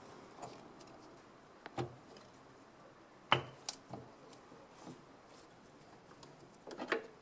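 A handful of short, light knocks and clicks, as of things being handled, spaced irregularly; the sharpest comes about a third of the way through, and a quick cluster comes near the end.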